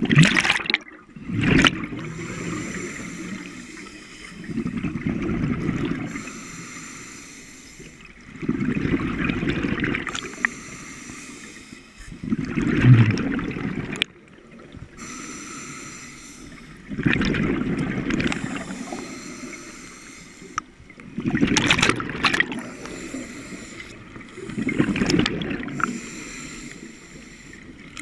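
A scuba diver breathing through a regulator underwater. Exhaled bubbles rumble out about every four seconds, seven times in all, with softer hissing inhalations between them.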